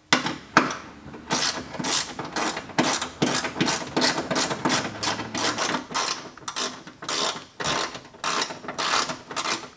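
Socket ratchet wrench being worked back and forth on a bolt in a truck's engine bay, its pawl clicking in quick, even strokes of about three a second.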